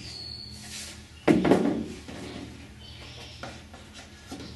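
Aluminium sheet-metal tail parts (stabilizer, rudder and piano hinge) being shifted and knocked against a wooden workbench while the hinge is lined up. There is one loud clunk with a short rattle about a second in, then a few lighter taps.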